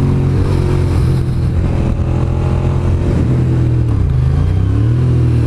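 Motorcycle engine running steadily while riding, heard from the rider's seat. Its pitch dips briefly about four seconds in and then climbs back.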